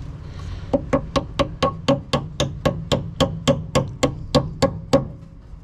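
A hand tool clicking or tapping against metal at a steady pace, about four sharp strikes a second for some four seconds, while the front rubber brake hose is fitted and secured at its bracket.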